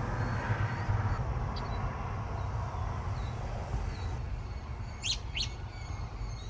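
Birds chirping in short high calls over a low steady rumble, with two quick downward-sweeping calls about five seconds in.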